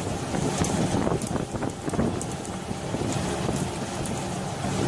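Wind buffeting the microphone over the rushing, splashing sea water churned up beside a pole-and-line tuna fishing boat, with many short sharp knocks and splashes scattered through it.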